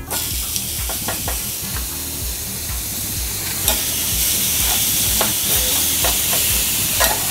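Thin slices of sirloin steak sizzling in a hot ridged grill pan greased with bacon and beef fat. The sizzle starts suddenly as the meat goes in and grows louder about halfway, with a few sharp crackles of spitting fat.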